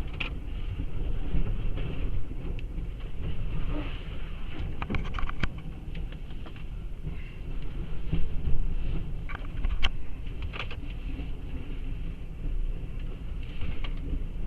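Hurricane-force wind from the back eyewall of Hurricane Michael, a heavy steady rumble with a hiss over it, with scattered sharp knocks and clicks of rain and debris striking.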